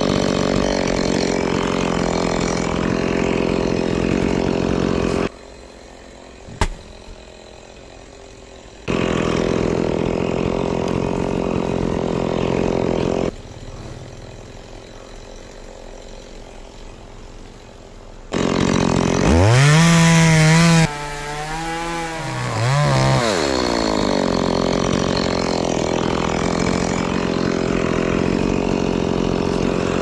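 Stihl chainsaw running at speed, cutting through a coconut palm trunk. The sound drops away twice and returns. Around two-thirds of the way in, the engine revs up and down before settling back to a steady high run.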